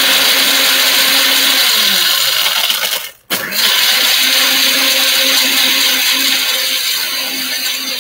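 Countertop blender running at full speed, crushing ice into an iced tea drink. The motor cuts out for a moment a little over three seconds in, then starts again.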